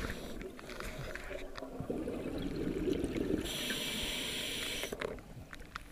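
Scuba diver's breathing through a regulator, heard underwater through the camera housing. First comes a muffled, low bubbling rumble of exhaled air, then a hiss of inhalation from about three and a half seconds in until about five seconds in.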